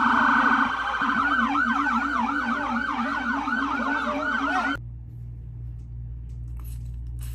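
Emergency vehicle siren: a rapid trill that switches about a second in to a yelp of quick rising sweeps, about three a second. It cuts off suddenly near the end, leaving a low steady hum and a few faint clicks.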